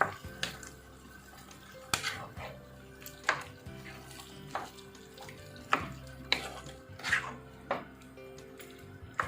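A spatula scraping and knocking against a metal pan while stirring vegetables and curry paste, a dozen or so irregular clinks and scrapes. Background music plays under it.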